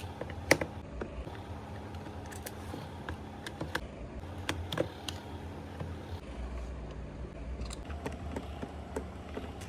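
Scattered small clicks and taps of a screwdriver and hands working on a Bluetooth speaker's casing while its screws are removed, over a steady low hum.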